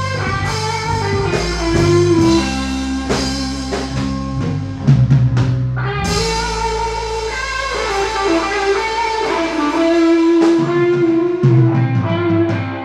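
Live rock band playing an instrumental passage: electric guitar over electric bass and drum kit, with a quick run of drum hits about five seconds in.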